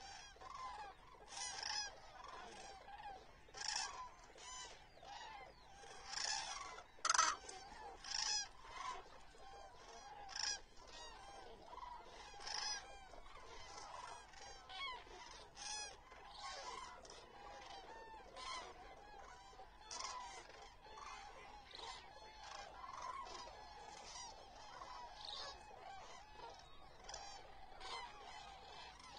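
A large flock of common cranes calling: trumpeting calls coming every second or so, many birds overlapping, the loudest about seven seconds in.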